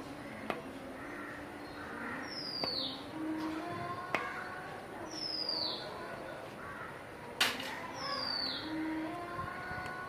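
A bird repeating one falling whistled note about every two and a half seconds, with a few sharp clicks, the loudest about seven seconds in.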